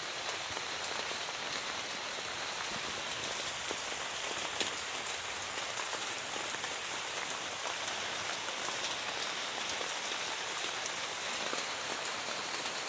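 Steady rain: an even hiss with scattered faint ticks of drops.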